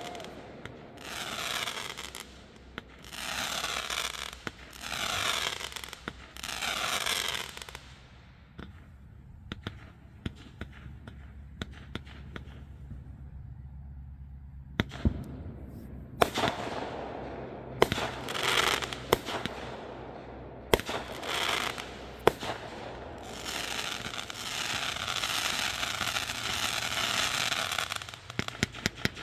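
Fireworks going off: a run of hissing rushes about a second apart, then scattered sharp cracks and pops, and a longer stretch of hiss and crackle with sharp bangs near the end.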